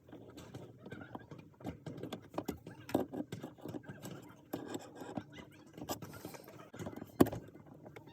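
Irregular small clicks, taps and scrapes of hand tools working at a cotter pin on the shifter's cable linkage, with a sharper knock about seven seconds in.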